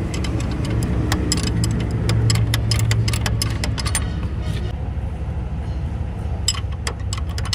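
Hand wrenches clicking and clinking on the bolts of a truck's torque arm rod, with a quick run of clicks near the end, over a steady low hum.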